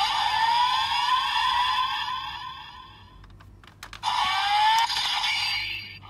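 Electronic sound effects from a DX Desire Driver toy belt with a typhoon Raise Buckle inserted: repeated rising whirring tones that fade out about halfway, a few sharp clicks, then another rising tone near the end.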